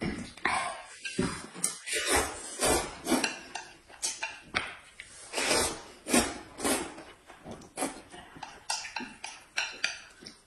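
Two people eating noodles with chopsticks: slurping and chewing in short irregular bursts, with chopsticks clicking against dishes.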